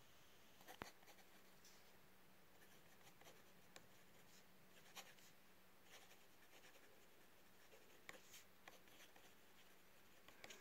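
Faint scratching of a fountain pen's nib on paper as words are handwritten, in short irregular strokes.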